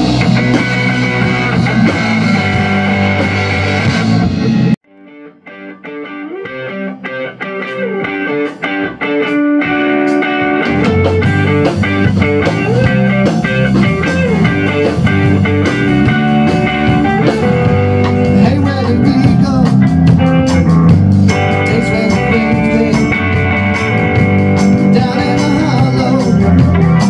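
Small rock band playing live on electric guitar, electric bass and a Tama drum kit. About five seconds in the band stops abruptly, a lone electric guitar plays a line of notes, and the bass and the rest of the band come back in about ten seconds in and play on.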